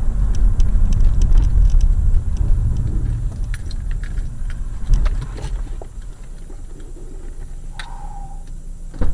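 Car road and engine noise heard from inside the cabin: a loud low rumble that fades over a few seconds as the car slows to a stop, leaving a quieter hum with small ticks and rattles.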